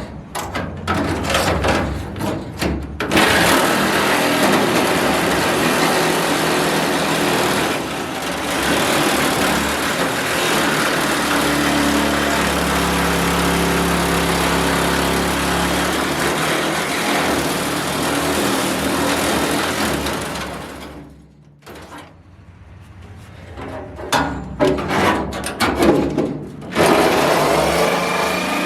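Power tool cutting 18-gauge sheet steel, running steadily for about eighteen seconds and then stopping. There is clatter of handling metal before it starts and again after it stops.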